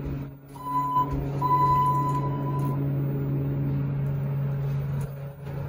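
Elevator car running with a steady low hum, and two electronic beeps about a second in, a short one followed by a longer one.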